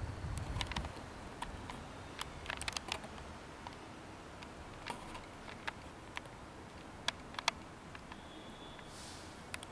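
Faint, irregular sharp clicks and ticks scattered over quiet outdoor background, with a low rumble in the first second.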